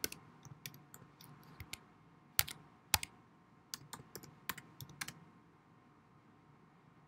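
Typing on a computer keyboard: irregular key clicks as a word is typed letter by letter, a couple of them louder than the rest. The typing stops a little after five seconds.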